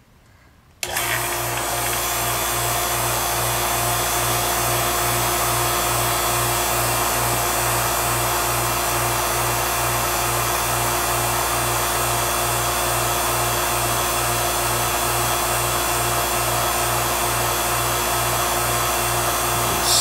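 HVAC vacuum pump switching on about a second in and running steadily with an even pulsing hum, pulling a refrigerant hose down to a deep vacuum of a few hundred microns.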